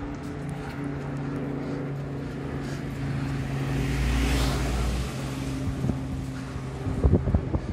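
A motor vehicle passing close by, its engine and tyre noise swelling to a peak about four seconds in and fading, over a steady engine hum. A few low thumps come near the end.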